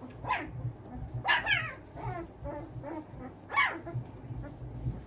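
Young Kangal puppies whining and yelping: short, high cries that fall in pitch, a cluster of them about a second and a half in and a loud one past three and a half seconds.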